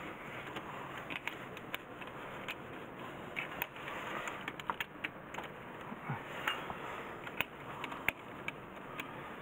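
Irregular small clicks and taps of hand tools and wire terminals being handled during wiring work, over a steady low background hiss.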